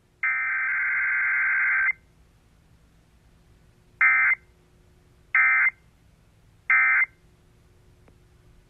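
Emergency Alert System data tones from an FM station's Required Weekly Test, heard through a tabletop radio's speaker. One long buzzing SAME header burst is followed, after a short pause, by three short identical end-of-message bursts about a second and a half apart.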